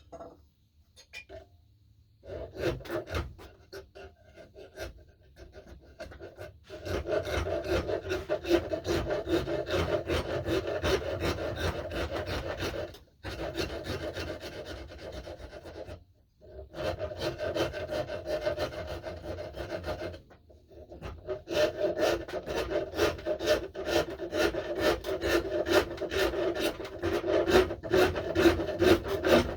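A hand rasp scraping a wooden axe handle in quick, continuous strokes as the knob is shaped. The scraping starts a couple of seconds in and is broken by a few short pauses.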